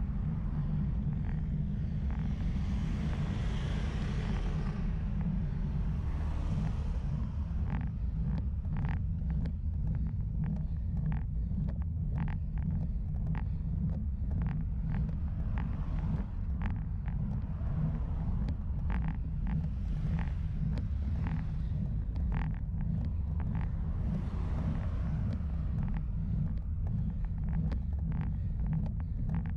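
Steady low wind and road rumble on the microphone of a camera riding on a road bike as it climbs, with frequent small ticks. A few swells of hiss rise and fade over a second or two each.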